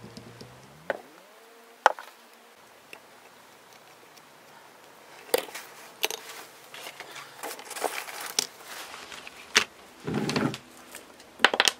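Handling noise on a craft work table: a couple of sharp clicks, a quiet stretch, then scattered taps and rustles as supplies are moved, with a longer scrape near the end as a paper plate is slid across the table.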